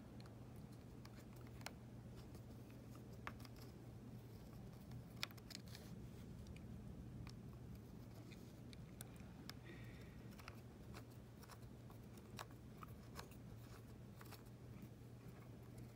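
Faint, scattered small clicks and ticks of a small screwdriver and the Apple TV's parts being handled as screws are tightened, over a low steady hum.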